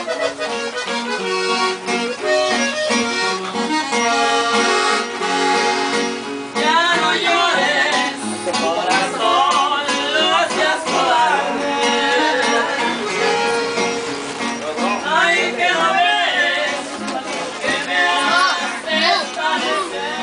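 Live band music: a guitar with accordion playing held chords, and from about six and a half seconds in, a voice singing over them with a wavering, vibrato-like line.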